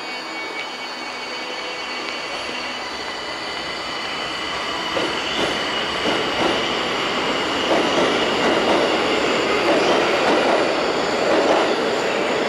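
Tokyo Metro 1000 series Ginza Line train moving through the station, its wheels squealing in a steady high tone over the rumble and clatter of the cars. The rumble and clatter grow louder from about halfway.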